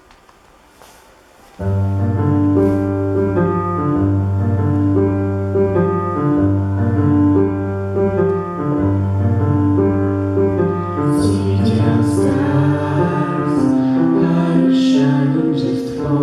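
After a brief quiet, instrumental music starts abruptly about a second and a half in: held keyboard chords over a steady bass line. Short high percussive hits join in during the second half.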